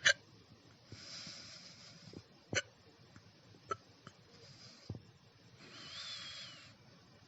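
A person hiccuping: four short, sharp hiccups at uneven intervals, the first the loudest. Between them come breathy hisses, one with a thin wavering whistle, like a wheezy breath.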